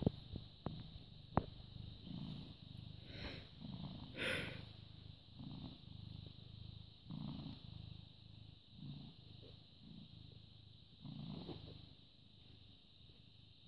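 British Shorthair cat purring close to the microphone, the low rumble swelling and easing about once a second with its breathing. A few sharp clicks come in the first second and a half, and a short brush of noise about four seconds in.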